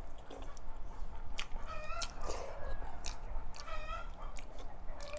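A hen clucking 'pok-pok' in the background, twice about two seconds apart, which the eater takes for a hen laying an egg. Sharp clicks sound close by between the calls.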